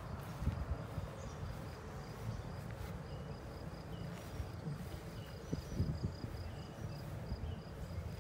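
An insect chirping: a steady train of short, high chirps at one pitch, several a second, starting about three seconds in. Underneath is a low rumble with a few soft thumps of footsteps in tall grass.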